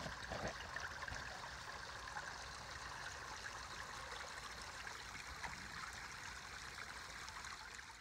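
Backyard koi pond waterfall: water trickling and splashing steadily over stacked stone ledges into the pond.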